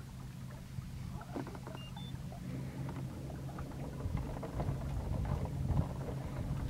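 Boat motor humming steadily at low speed, growing a little louder, with scattered soft clicks over the top.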